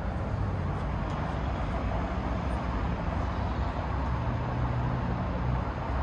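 Road traffic from the street below, a steady low rumble of passing cars with no single vehicle standing out.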